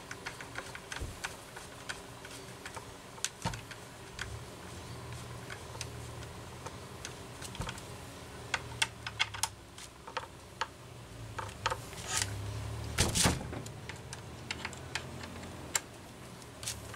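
Light clicks and taps of small metal parts and hand tools being handled on a workbench during chainsaw reassembly, irregular throughout, with a louder rattling cluster about twelve to thirteen seconds in.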